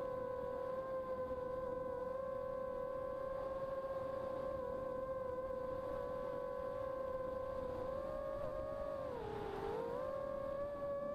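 Brushless motors and propellers of a 285 mm carbon-frame FPV quadcopter, heard from its onboard camera: a steady whine with a rushing hiss beneath. The pitch dips and comes back up about nine seconds in.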